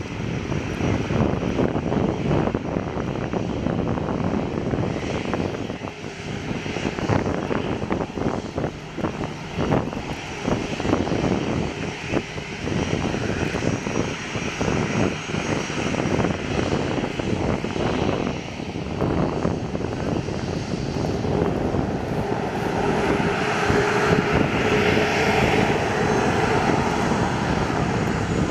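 Boeing 737-300's CFM56-3 turbofan engines running at taxi power as the jet rolls past close by: a steady, loud rumble, with a whine that grows stronger in the last few seconds.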